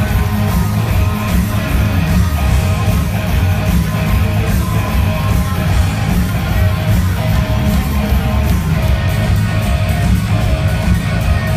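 Live rock band playing loud: distorted electric guitars, bass and drums on a steady beat, with a heavy low end.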